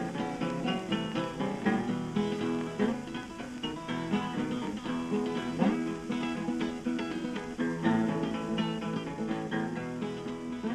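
Background music: a blues song's guitar break, a run of quickly picked notes with no singing.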